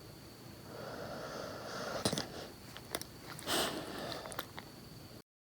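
A Labrador Retriever snoring in its sleep: two long, noisy breaths, the second louder, with a few small clicks between them.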